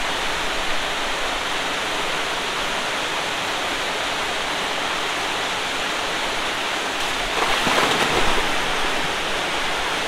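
Steady rush of a small waterfall pouring into a rock pool. About seven and a half seconds in, a person jumping into the pool makes a splash that briefly swells over the rush.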